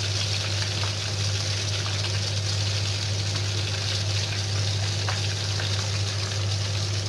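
Hot oil sizzling steadily as breaded potato balls stuffed with minced meat deep-fry in a pan, over a steady low hum.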